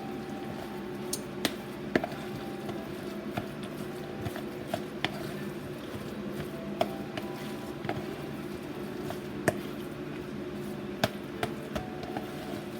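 Scattered light clicks and knocks of kitchen utensils and a bowl while a meatloaf mixture is worked, irregular and about one every second, over a steady low hum.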